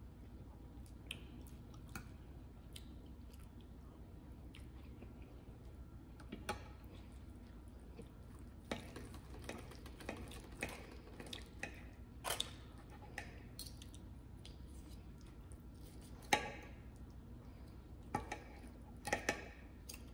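Close-up mouth sounds of someone chewing baked chicken and mashed potatoes. Scattered clicks of a knife and fork on a plate as the chicken is cut come more often in the second half, with a sharp clink about three-quarters of the way through.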